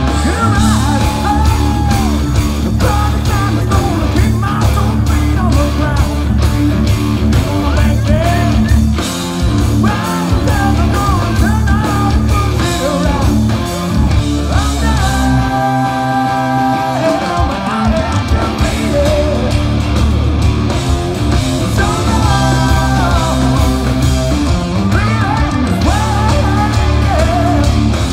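Live rock band playing loud: electric guitars, bass and drums with a singer. About halfway through, the bass and drums drop out for a couple of seconds under held chords, then the full band comes back in.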